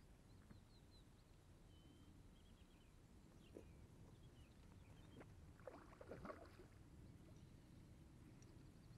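Faint splashing: a hooked rainbow trout thrashing at the surface, in a short cluster about six seconds in. Faint bird chirps come earlier, over a low rumble of wind on the microphone.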